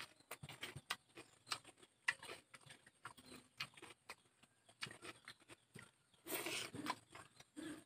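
Close-up eating sounds from a person chewing with the mouth open: irregular wet smacks and small clicks, with wooden chopsticks handling food on a plate. A longer, louder crunching bite comes about six seconds in.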